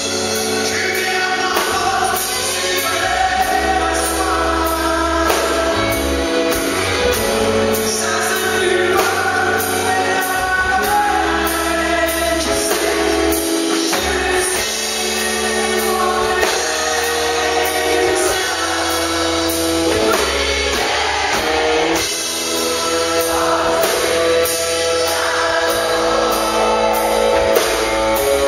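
Live rock band: a male lead singer over electric bass, guitar and drums keeping a steady beat.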